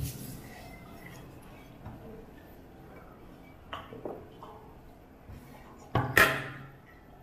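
Stainless steel tableware knocking and clinking: a sharp knock at the start, a few light knocks about four seconds in, and a louder ringing clink about six seconds in.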